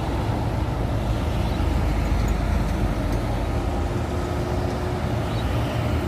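Tour bus diesel engine running as the bus pulls away onto the road, a steady low rumble mixed with road traffic noise.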